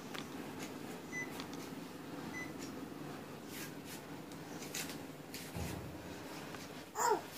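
Panasonic CS-PC7QKJ mini split air conditioner running with a steady hum and rush of air, with two faint short high beeps and a few light clicks. Near the end a brief squeak falling in pitch is the loudest sound.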